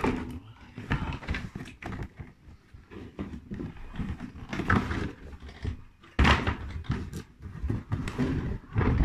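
Cardboard box and its packaging being handled: irregular scraping, rustling and knocks, with the loudest knocks about six seconds in and near the end.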